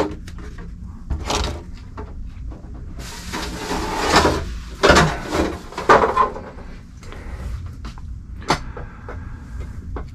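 A plastic RC car body shell being lifted off the chassis and handled on a bench: a rustling, rattling stretch of about a second and a half, with scattered knocks and clicks, one sharp click late on.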